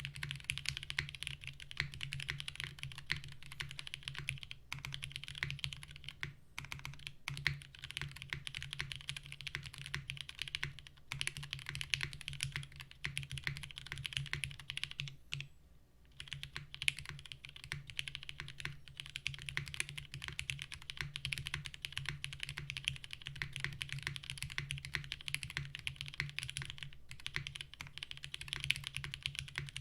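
Continuous typing on a 60% custom mechanical keyboard with Cherry MX Black Hyperglide linear switches and GMK keycaps in a gummy O-ring mount, a steady stream of keystrokes with a brief pause about halfway through.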